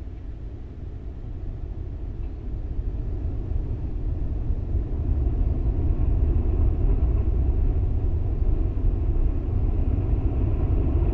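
Falcon 9 rocket's nine first-stage Merlin engines during ascent: a deep rumbling roar that grows louder over the first five seconds or so, then holds steady.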